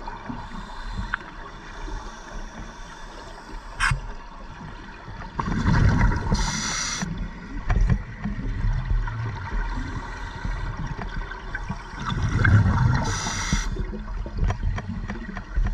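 Scuba diver breathing through a regulator, heard underwater: two breaths, each a low gurgle of exhaled bubbles followed by a short hiss of inhaling through the demand valve. A single sharp click comes about four seconds in.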